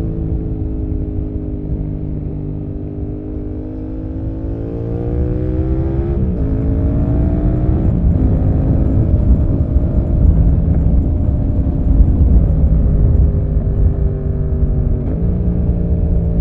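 Yamaha MT-07's parallel-twin engine through an SC-Project exhaust, heard onboard while riding. The engine pitch sags, then climbs under throttle and drops sharply at upshifts about six and eight seconds in, with another gear change near the end. A low wind rumble grows louder at speed.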